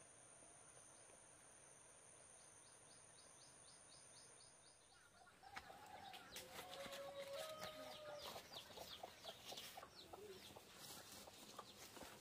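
Faint insects droning high with a quick, regular chirping. About five seconds in, the sound changes to chickens clucking amid scattered clicks and scratching.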